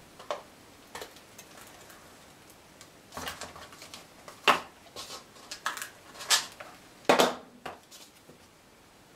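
Paper and small crafting tools being handled and set down on a tabletop mat: scattered sharp clicks and taps, the loudest in the second half, with soft paper rustling between.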